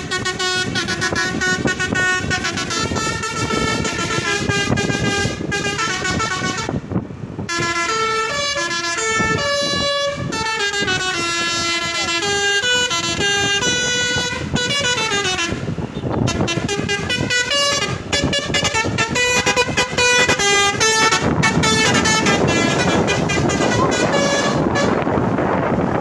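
Basuri V3 'telolet' multi-tone bus air horn playing a long melody of quickly changing notes. Near the end the tune thins out under a loud rushing noise.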